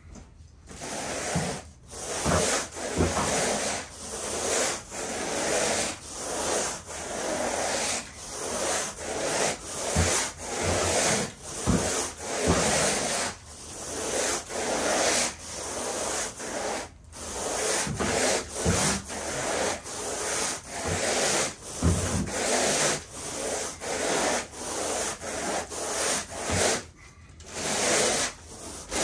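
Carpet groomer (rake) dragged back and forth through carpet pile in quick strokes, about one or two a second, grooming a chlorine dioxide treatment into the fibres. A few dull thumps sound among the strokes.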